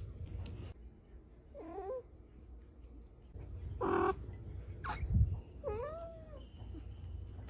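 Cat meowing: about three short calls that bend up and down in pitch, with a low thump about five seconds in.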